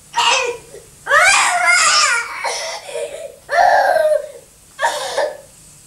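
A toddler crying in about four wailing bursts with short gaps between them, with laughter mixed in.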